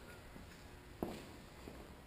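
Faint footsteps: a few soft steps with one firmer step about a second in.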